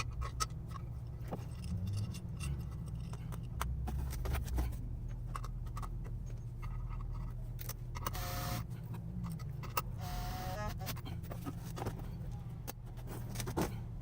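Light metallic clicks and rattles of a valve spring compressor and loose valve parts (springs, retainers, keepers) being handled on a Honda K24 cylinder head, with two short scraping noises about 8 and 10 seconds in, over a steady low hum.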